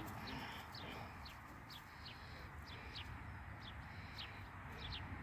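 Faint bird chirps: short, quickly falling calls repeating about two to three times a second, over low outdoor background noise.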